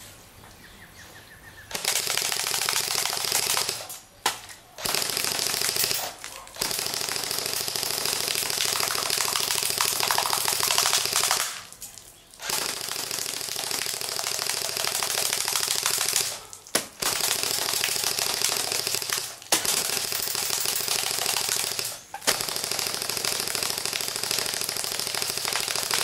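Airsoft AK-47 rifle firing long full-auto bursts: a fast, steady rattle lasting a few seconds at a time, stopping briefly and starting again about seven times.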